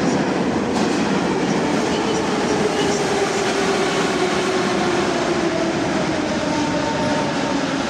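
Metro train running at the platform, a rumble of wheels and machinery with a motor whine that falls steadily in pitch, typical of a train braking to a stop.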